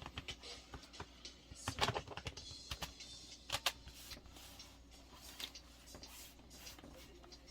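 Scattered plastic clicks and short scrapes of hands working on a laptop's casing and parts during a memory upgrade, busiest about two seconds in and again at about three and a half seconds.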